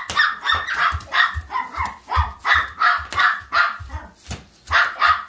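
Bubble wrap popped under stomping feet, with sharp pops and dull thumps, while a dog barks over and over, about two to three barks a second.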